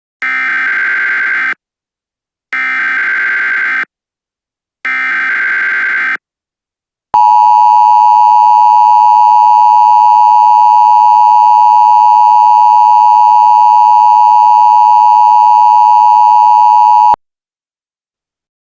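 Emergency Alert System signal: three short bursts of SAME header data, each about a second and a half long, then the two-tone attention signal, a loud steady dual tone held for about ten seconds that cuts off suddenly.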